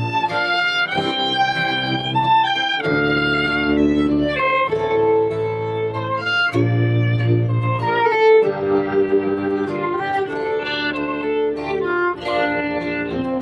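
A fiddle playing a tune in long, held notes, with a guitar accompanying it.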